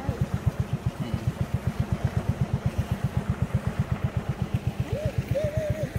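Boat's engine running at a steady, low pulsing beat, about seven beats a second. A brief wavering pitched call sounds near the end.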